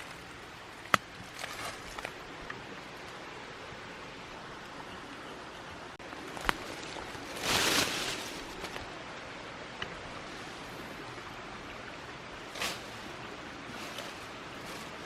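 Steady outdoor background hiss, with a sharp snap about a second in and another midway, followed by a louder rustle lasting about a second and a shorter one near the end.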